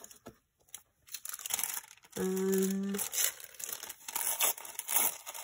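Wax paper crinkling and rustling as it is handled and crumpled. A little over two seconds in there is a short, steady hummed note from a voice.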